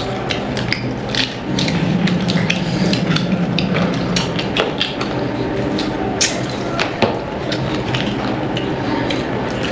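People eating: irregular wet smacks and crunching clicks of chewing and handling food, many per second, over a steady low hum.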